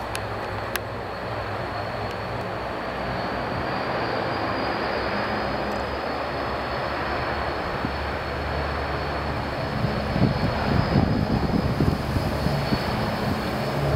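Ilyushin Il-18's four Ivchenko AI-20 turboprop engines running at taxi power: a steady high turbine whine over a low propeller drone, growing slowly louder as the airliner taxis toward the listener. Gusty low rumbles come in over the last few seconds.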